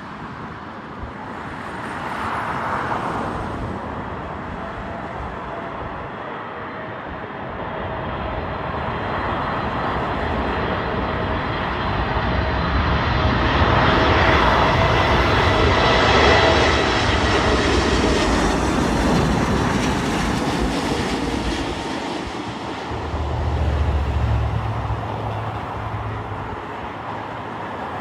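Boeing 747-8's four GEnx turbofan engines on an arriving airliner, a jet whine and rumble that build to a peak about halfway through and then fade.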